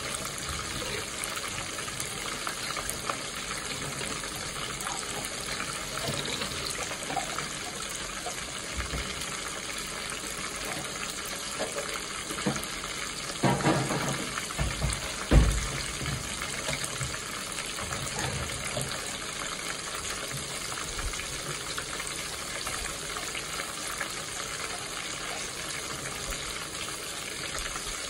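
Dove pieces frying in oil in a pot: a steady sizzle throughout, with a few low thumps about halfway through.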